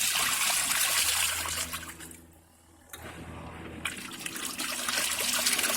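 Best Choice Products portable twin tub washing machine agitating a coat in the wash tub: water churning and sloshing over a low motor hum. The sound drops almost away a little over two seconds in, then starts up again about a second later.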